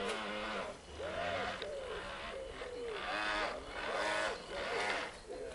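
Repeated animal calls, several overlapping, each rising and then falling in pitch, going on throughout.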